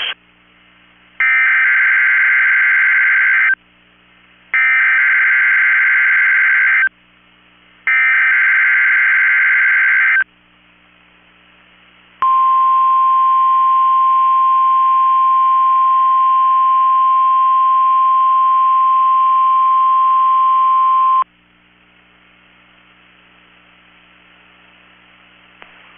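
Emergency Alert System SAME header: three bursts of warbling two-tone data, each a little over two seconds long. After a short pause comes the steady 1050 Hz weather radio warning alarm tone, held for about nine seconds, marking the start of a weather radio test.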